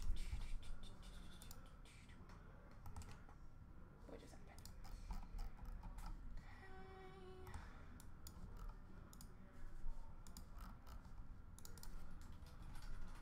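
Computer keyboard typing and mouse clicking: a run of light, irregular clicks, setting up a randomiser. A brief steady pitched tone sounds about seven seconds in.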